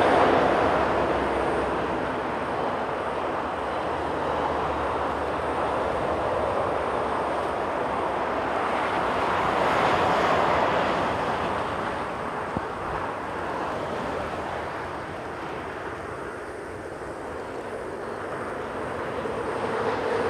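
Jet noise from an Airbus A350-900's Rolls-Royce Trent XWB engines on final approach at landing power, a steady rumble with hiss. It swells about halfway through, eases a few seconds before the end, then builds again as the aircraft closes in.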